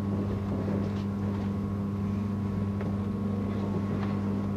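Inside a moving Class 312 electric multiple unit: a steady low hum over the rumble of the ride, with a few faint clicks.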